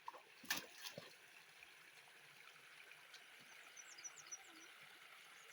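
Near silence: a faint steady creek trickle, two sharp knocks about half a second and a second in, and a short run of high chirps about four seconds in.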